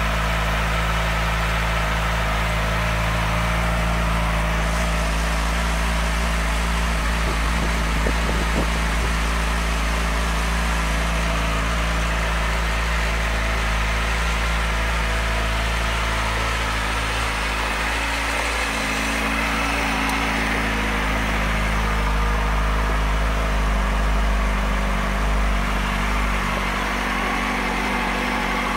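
2006 Kawasaki Ninja ZX-6R 636's inline-four engine idling steadily.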